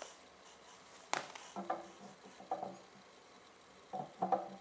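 A metal breech block being fitted onto the end of an airgun barrel: one sharp metallic click about a second in, then a few small clinks with a short ring as the parts are handled and seated.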